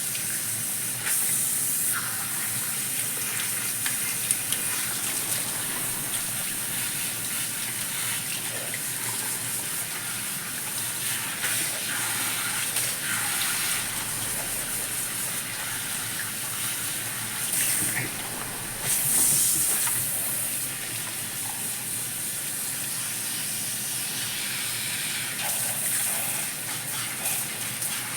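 Salon shampoo-bowl shower head spraying water over the client's hair and scalp during the rinse: a steady hiss of running water, briefly louder about two-thirds of the way through.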